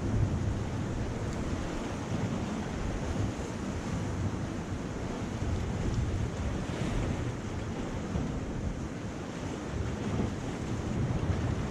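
Sea surf washing against shore rocks, with wind buffeting the microphone in an uneven low rumble.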